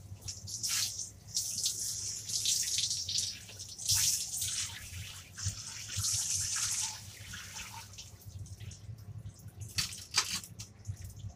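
Handheld shower head spraying water in uneven bursts onto a dog's coat, wetting it down for a bath; the spray eases off about seven seconds in, leaving dripping.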